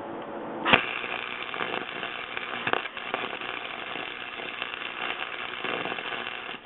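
Flux-core wire welder arc crackling steadily as a bead is laid, starting with a sharp strike about a second in.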